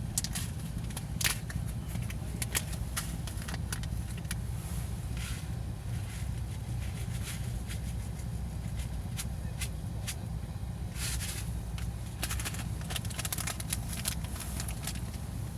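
Wood campfire crackling, with irregular sharp pops and clicks that bunch up near the end, over a steady low rumble.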